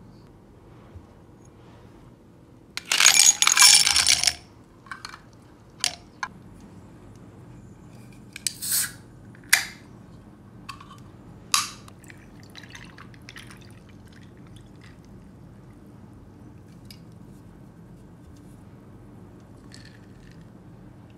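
Ice cubes clattering into a drinking glass in one loud rush, followed by a series of sharp single clinks and taps of ice against glass.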